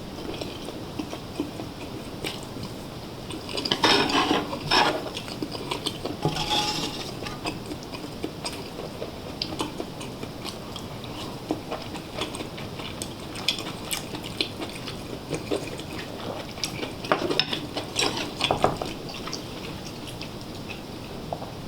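Metal cutlery clinking and scraping against dishes and a pot while eating, with louder clatters about four seconds in, around six to seven seconds, and near the end.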